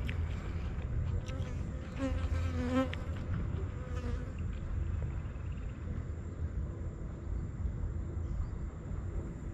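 An insect buzzing close by for a couple of seconds, its pitch wavering. Underneath are a steady low rumble and a thin, steady high-pitched whine.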